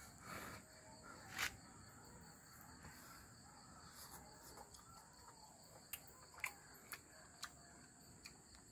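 Faint steady chirring of crickets, with a few brief soft clicks near the middle and towards the end.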